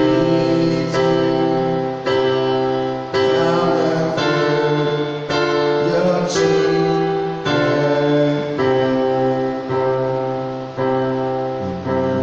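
Yamaha PSR-S750 arranger keyboard playing slow, sustained chords, a new chord struck about once a second and each dying away before the next.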